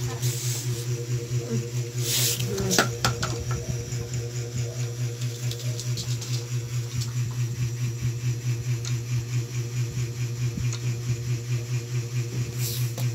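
A steady low machine hum with a fast, even pulse, with a brief patch of rustling and a few clicks about two to three seconds in.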